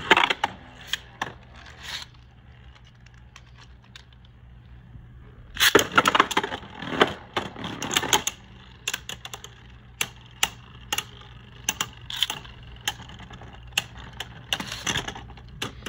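Beyblade spinning tops clicking and clattering against each other and the plastic stadium wall, with a dense run of clashes about six to eight seconds in, then scattered single clicks.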